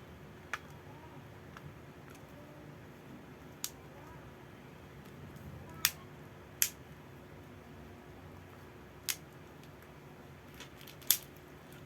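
About six sharp, separate clicks and taps a second or more apart, from small phone parts and repair tools being handled on a Realme C2 smartphone, over a faint steady hum.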